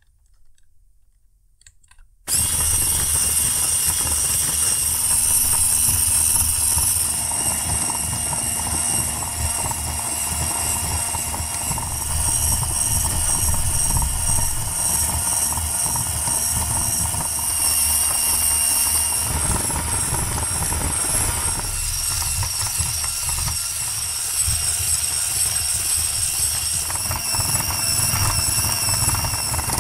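WS-15 turbofan scale model running, its fan and compressor blades spinning with a steady whirring hiss and high whine over a low hum. It switches on suddenly about two seconds in, after near silence, and the hum shifts a little past the middle.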